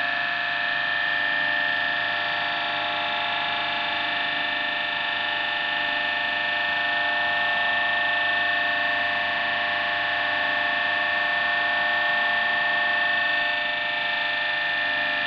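Bergmann slip-ring three-phase induction motor from around 1920, its slip rings bridged, running steadily at speed with a constant high whine over a mechanical hum.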